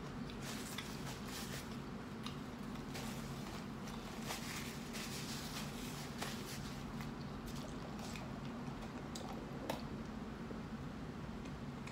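Close-up chewing and soft, wet squishy mouth noises of a person eating a burrito, with scattered small clicks and crackles, over a steady low hum in the room.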